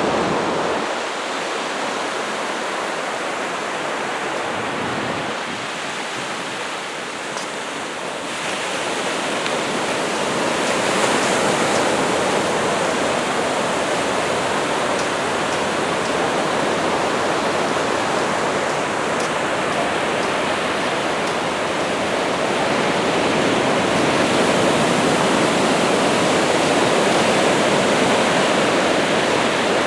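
Small surf washing onto the beach: a steady rushing hiss of breaking water that eases slightly a few seconds in and builds again.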